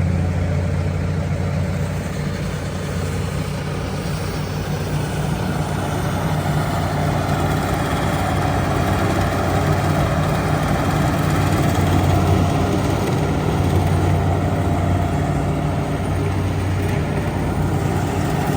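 Heavy diesel engine of bogged-down farm machinery running steadily under hard load, with a deep, even drone. The load is the strain of trying to drag a combine harvester sunk in deep mud.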